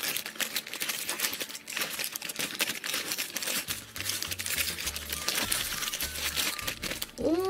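A shiny plastic blind-bag packet crinkling and tearing as it is opened by hand, then the wrapped toy inside rustling as it is pulled out.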